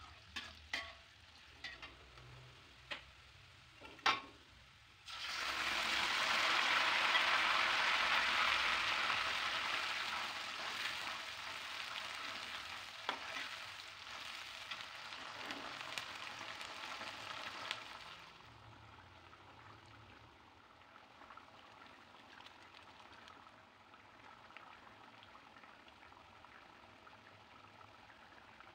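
A metal spatula knocks against a wok a few times, then about five seconds in a chili-tomato mixture hits the hot oil with a sudden loud sizzle. The frying is stirred and dies down over the next dozen seconds to a faint simmer.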